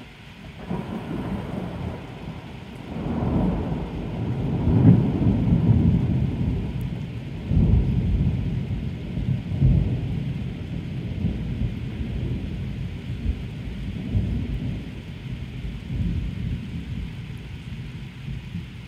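A long, rolling peal of thunder. It starts about a second in, swells through several loud peaks over the next ten seconds, then slowly dies away.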